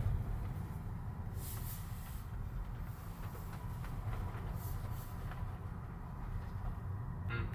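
Steady low rumble of a moving vehicle heard from inside, with a few brief hisses now and then.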